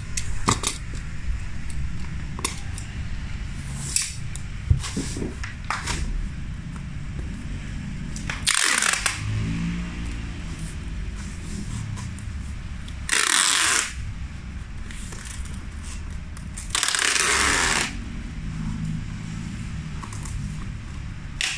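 Clear packing tape pulled off its roll three times, each pull about a second long or less, onto a corrugated cardboard box, with short taps and rubbing of hands on the cardboard in between.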